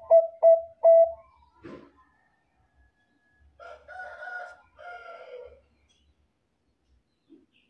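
Zebra dove (perkutut bangkok) cooing: the last few short, clipped notes of its song phrase in the first second. About three and a half seconds in come two fainter, rougher calls.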